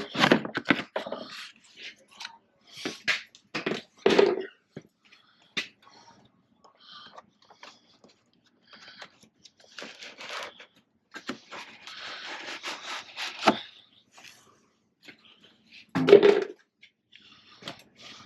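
Hand work under a pickup's hood: scattered clicks, knocks and scrapes of tools and engine-bay parts being handled, busier for a few seconds just past the middle, with one louder short sound about 16 seconds in.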